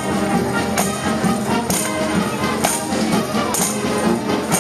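Town wind band playing a march, sustained brass and wind notes over a steady beat, with a bright cymbal stroke about once a second.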